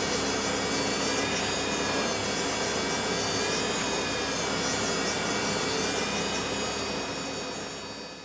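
An electric workshop tool's motor runs steadily with a high whine, along with the rubbing of metal being ground or polished on it. It fades out near the end.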